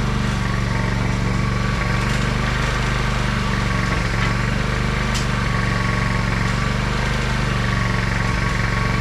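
Portable generator engine running steadily at a constant speed, with a few faint light clicks over it.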